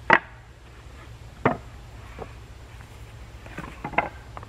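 Sharp knocks of wood on wood from work on a plank bridge deck: a loud knock right at the start, another about a second and a half later, then a cluster of lighter knocks ending in a loud one near the end.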